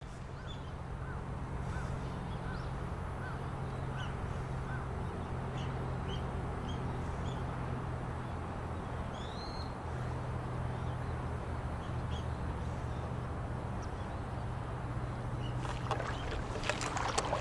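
Outdoor river ambience: a steady low hum with wind and water noise. A bird calls with short repeated notes in the first few seconds, and gives a single rising call about halfway through. A few sharp knocks come near the end.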